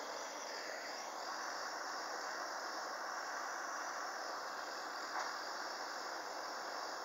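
Steady hiss of a hose-fed gas soldering iron's burner running while lead joints are soldered, with one light tap about five seconds in.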